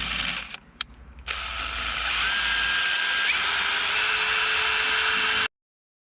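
Small power tool running, cleaning corrosion off the wiring: a short burst, then a steady run from about a second in that cuts off abruptly near the end.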